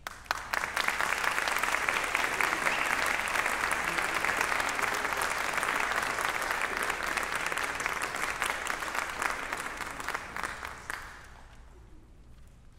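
Audience applauding, breaking out at once as the music ends and dying away about eleven seconds in.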